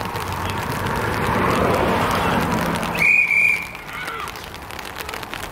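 A referee's whistle gives one short, shrill blast about three seconds in, lasting about half a second, over a noisy outdoor background.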